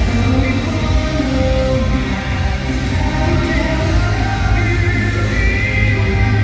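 Loud pop-rock music with a singing voice and a steady beat.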